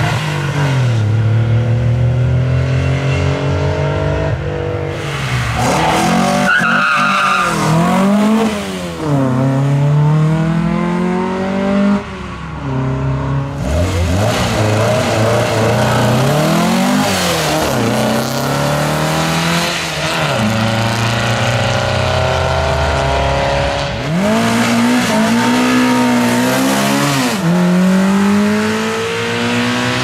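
Racing cars at full throttle on a hillclimb course, one after another, including an air-cooled Porsche 911 and a VW Beetle: each engine revs up, drops in pitch at a gear change and climbs again. The sound breaks off abruptly several times as one car gives way to the next.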